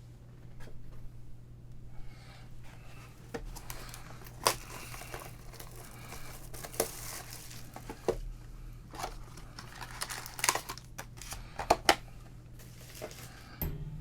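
Foil trading-card pack wrappers being torn open and crinkled, with cards handled and tapped in a series of irregular sharp clicks.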